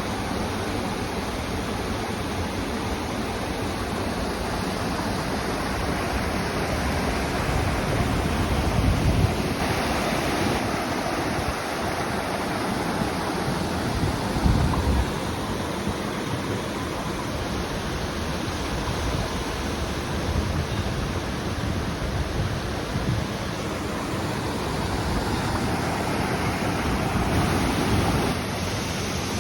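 Waterfall rushing steadily, heard up close, with wind buffeting the microphone twice along the way.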